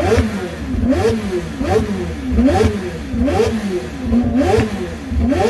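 Supercar engine revved hard while standing still, in repeated quick blips a little more than one a second. The pitch climbs sharply on each and falls back between them.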